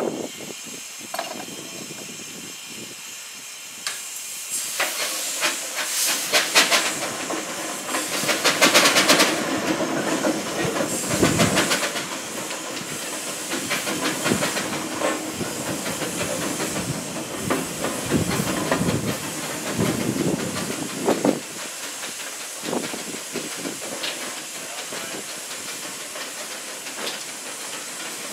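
1921 Kelly Springfield steam roller's steam engine hissing steam as it is worked. The hiss swells for several seconds with runs of quick sharp beats, then settles back to a steady, quieter hiss.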